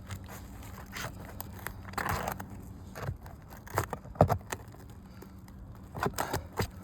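Asphalt roof shingles being pried up and worked loose: scraping, crackling and tearing with scattered sharp clicks and knocks, the sharpest about four seconds in. The shingles are delaminating and falling apart as they are lifted.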